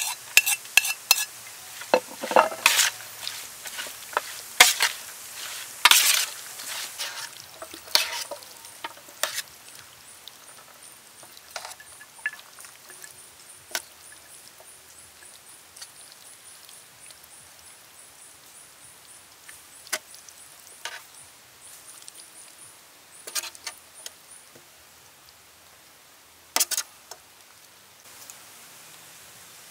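Wet, sticky mixing of dressed chicken feet in a metal tray, with clicks and scrapes of a metal utensil on the tray, busiest in the first ten seconds. After that come a few scattered knocks as the feet are lifted onto a plate, with a faint, fast, high-pitched pulsing in the background.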